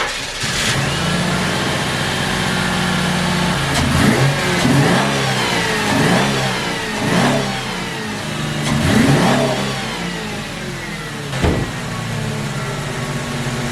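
Ford Mustang engine running at a smooth idle, blipped up in revs five or so times in the middle before settling back to idle, with one sharp knock near the end. It is freshly tuned with new plugs, wires and fuel filter, and runs with no stumble: the misfire is gone. It is running without an air filter, so the intake noise is plain.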